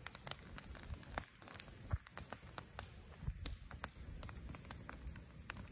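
Small campfire of dry brush and sticks burning, crackling with irregular sharp pops and snaps.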